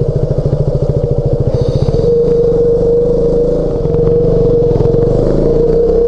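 KTM 200 Duke's single-cylinder four-stroke engine running at low revs as the bike rolls slowly. Its separate beats are distinct for the first two seconds, then it settles into a smoother, steady note.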